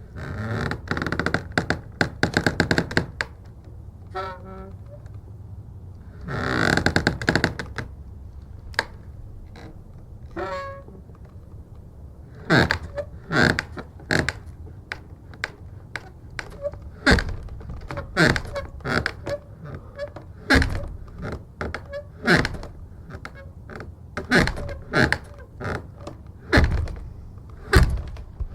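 Heavy wooden church door creaking and squeaking on its hinges as it is swung, then a long run of sharp knocks, snaps and heavy thumps as the door is banged and worked.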